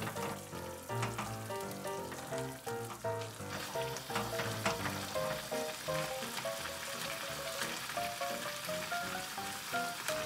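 Spicy rabokki sauce bubbling and sizzling in a saucepan as instant ramen noodles cook, with wooden chopsticks poking and stirring through the noodles; the sizzle grows denser a few seconds in. A light background melody plays over it.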